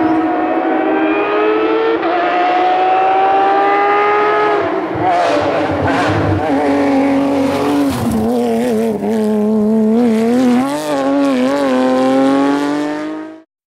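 Porsche 997 GT3 rally car's flat-six engine at high revs, the note climbing steadily for about five seconds, dropping, then rising and falling repeatedly. The sound cuts off suddenly near the end.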